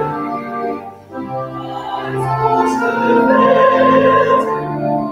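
A solo voice singing a slow sacred song with organ accompaniment, in long held notes. There is a short breath-like gap about a second in.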